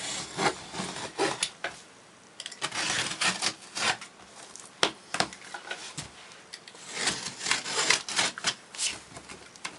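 A box being opened and its packing handled: a run of scraping, rustling and sharp clicks, with brief lulls about two seconds in and again around six seconds.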